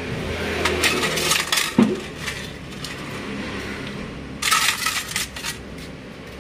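Small metal parts clinking and rattling against each other in two bursts, about a second in and again past four seconds, as scooter engine parts are washed in petrol.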